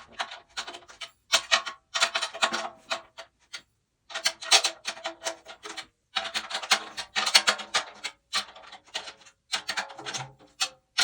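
14x8 maple/mahogany stave 10-lug snare drum played with sticks in quick runs of strokes and short fills, each hit ringing with a clear pitch, tuned tight. It sounds loud.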